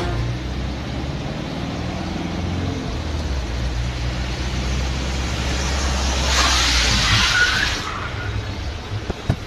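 Mahindra Scorpio diesel SUV driving on a wet road with a steady low engine hum, then a loud hiss of tyres on wet tarmac for about a second and a half, with a faint short squeal, as it brakes hard to a stop from 60 km/h.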